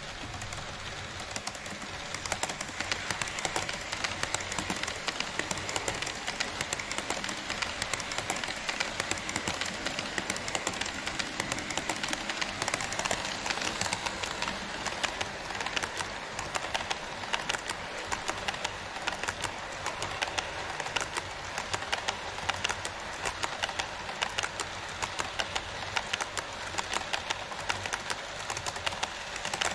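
HO scale model train running on KATO Unitrack sectional track: a steady rolling hiss with frequent sharp clicks throughout.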